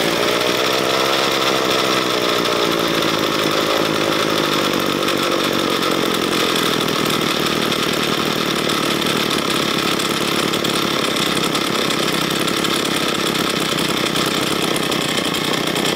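Ryobi ES30 two-stroke string trimmer engine running steadily, just after starting. Its speed sags a little over the first few seconds and then holds, as the idle speed is being set on the throttle-stop screw after a carburetor cleaning and mixture adjustment.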